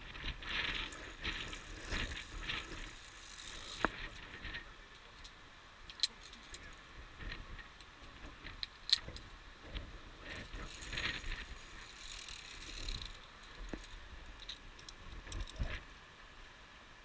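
Via ferrata lanyard carabiners clinking and rattling against the steel safety cable as the climber moves along it, with a few sharp metal clicks and stretches of scraping and rustling.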